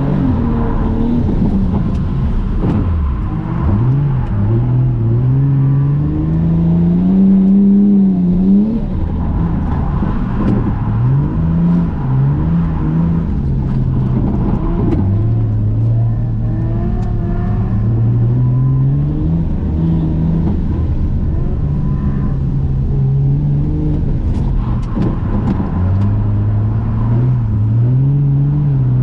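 Toyota JZX100 Mark II's straight-six engine heard from inside the cabin, its revs climbing and dropping again and again as the car is drifted.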